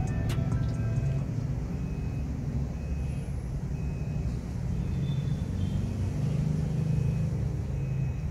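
A steady low rumble of background noise, with a few faint, brief high tones over it.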